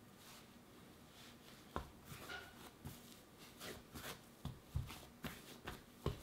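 Hands kneading a ball of dense rye soda bread dough on a floured countertop. Faint at first, then soft thumps about twice a second as the dough is pressed and turned, with light rubbing between them.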